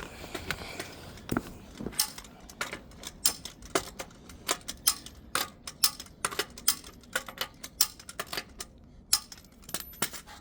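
Click-type torque wrench ratcheting and clicking on the lug nuts of a dump truck's front wheel: a run of sharp metallic clicks, irregular, several a second, as the nuts are brought to torque in turn.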